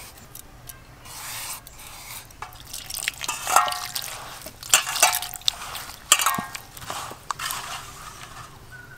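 Water poured from a clay pot into a steel bowl, and a hand kneading and stirring lumps of sugarcane jaggery in the water, with irregular splashing and squelching as the jaggery dissolves.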